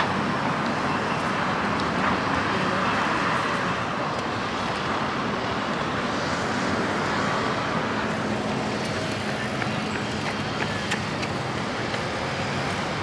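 Road traffic noise: cars and other vehicles passing on a busy street, one swelling past in the first few seconds, with a steady low engine hum setting in past the middle.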